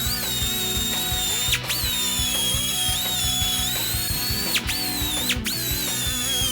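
High-speed power tool whining steadily, its pitch plunging sharply and recovering about three times as it is pressed into the work, over background music.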